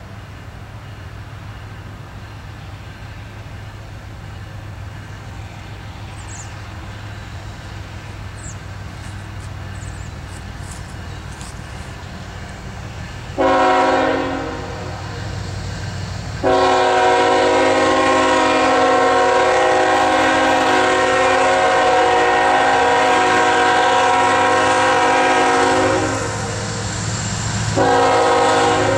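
Approaching CSX freight train led by a GE ET44AH diesel locomotive: the engine rumble grows louder, then the multi-chime air horn sounds a short blast about halfway in, a long blast of about ten seconds, and another blast starting near the end.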